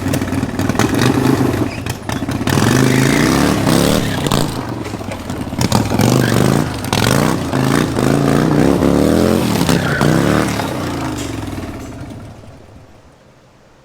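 Harley-Davidson 1300cc V-twin engine on a go-kart, revving up and down repeatedly, its pitch rising and falling several times, then fading out over the last few seconds.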